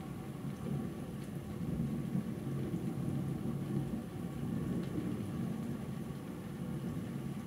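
Distant thunder rolling on in a long, low rumble that swells a little about two seconds in.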